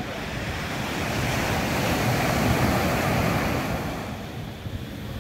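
Surf washing onto a sandy beach: a wave swells up about a second in and fades away near the end. Wind rumbles on the microphone throughout.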